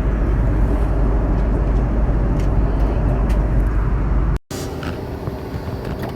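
Steady low rumble of a vehicle heard from inside while moving, cut off abruptly about four and a half seconds in, followed by quieter background noise with a faint steady hum.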